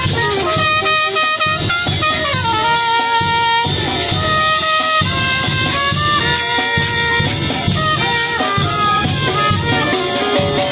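Mexican village wind band playing live: clarinet, alto saxophone and trumpets playing a melody together over a steady drum beat.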